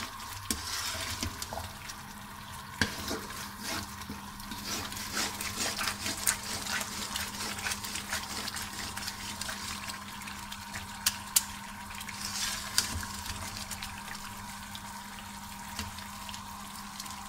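Malai and flour crackling and bubbling as they fry in their own ghee in a metal kadai, while a metal spoon stirs and scrapes through the mixture. The spoon knocks sharply on the pan a few times. The sound marks the stage where the ghee is separating out from the milk solids.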